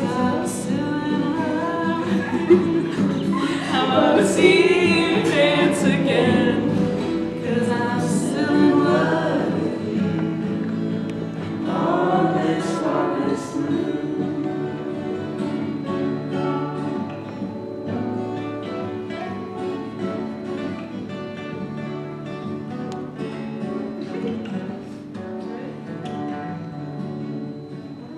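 Acoustic guitar playing with a voice singing a song. The singing stops a little after halfway and the guitar plays on, slowly getting quieter.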